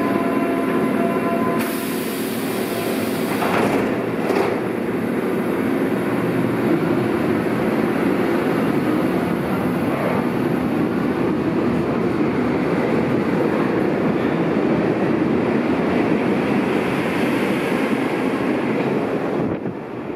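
Berlin U-Bahn F92 train with three-phase AC traction motors departing a station. A steady warning tone sounds as the doors close, followed by a hiss and two knocks. The train then accelerates out past the platform, its motors and wheels making a steady loud rumble on the rails, which falls away about a second before the end.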